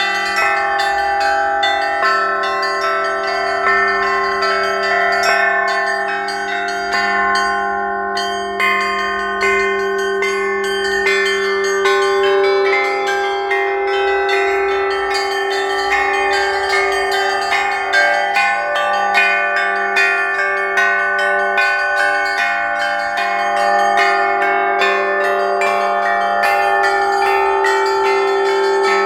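Russian bell ringing (zvon): several church bells struck in a steady rhythm over the sustained hum of the deepest bell, played in duet with bila, struck percussion boards.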